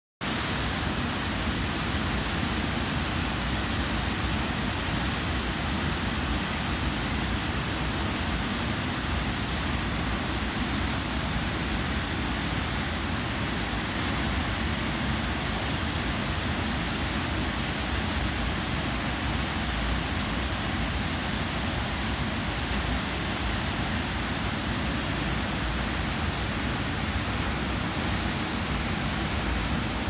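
Water pouring over a concrete dam spillway and crashing into the river below: a steady, unbroken rush of falling water.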